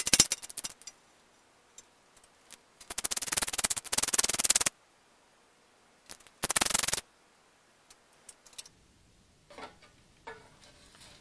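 Socket ratchet wrench clicking in quick runs as it turns out the rusted battery box's mounting bolts: briefly at the start, a longer run about three seconds in, and a short one about six and a half seconds in. Near the end there is a faint scrape as the battery box comes free.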